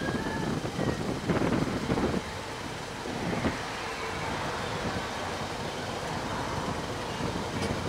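Steady rumbling background noise like road traffic, swelling louder for about a second a little over a second in.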